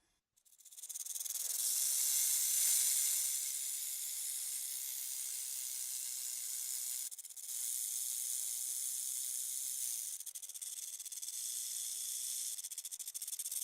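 Snake hissing: one long, steady hiss that drops out briefly about seven seconds in, then carries on with a faint flutter toward the end.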